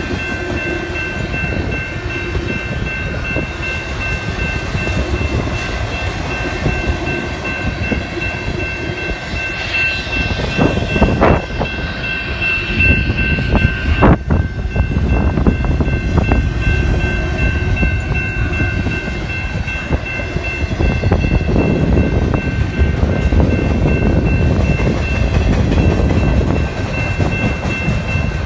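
Union Pacific double-stack container train rolling slowly through a grade crossing, its cars rumbling and clattering over the rails, while the crossing's warning bell rings steadily. A few louder clanks stand out about ten to fourteen seconds in.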